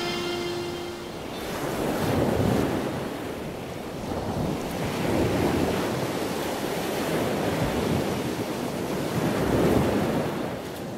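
Rushing noise of surf, swelling and ebbing in four slow waves, as the last held note of the song fades out about a second in.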